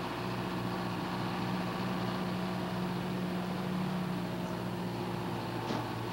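Bus engine idling: a steady low hum, with a brief knock near the end.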